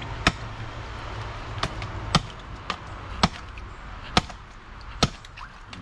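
A blade chopping through barracuda on a chopping block, about seven sharp strikes at irregular intervals of roughly a second, over a steady low hum.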